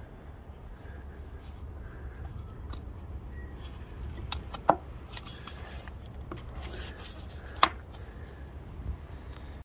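Light clicks and clinks of metal parts and hand tools being handled during motorcycle disassembly, with two sharper clinks about five and eight seconds in, over a steady low hum.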